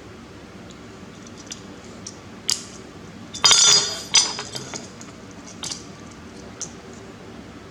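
Small hard objects clicking and clinking as they are handled, with a louder clattering rattle about three and a half seconds in.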